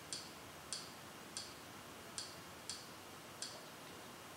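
Faint, short, high-pitched ticks from the Kodi menu, six of them at uneven intervals, each one a step of the highlight down the on-screen folder list.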